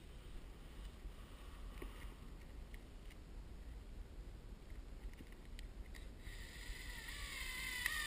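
Cordless drill driving a screw through the drywall ceiling into a furring strip: its motor whine starts about six seconds in and rises slightly in pitch as it runs. Before that there is only light handling noise.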